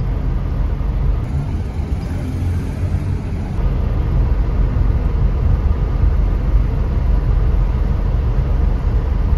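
Steady low rumble of a car idling, heard from inside the cabin with the driver's window open.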